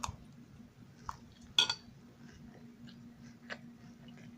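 A spoon clinking a few times against a cereal bowl during eating, each clink short and separate, the loudest about one and a half seconds in, over a faint steady hum.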